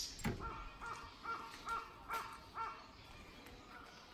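A bird calling: a quick run of about eight short, evenly spaced notes, about three a second, that stops about three seconds in. It follows a last high chirp at the very start.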